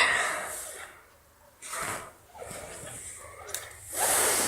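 A person breathing hard close to the microphone: four rough, noisy puffs, each under a second long, with short quiet gaps between them.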